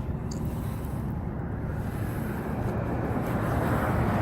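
Wind buffeting the phone's microphone: a steady low rumbling hiss that slowly grows louder.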